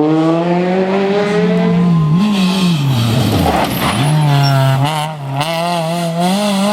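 Rally car engine at high revs under acceleration, its pitch rising, then dropping sharply about three and a half seconds in before pulling again at a steady, slightly wavering pitch.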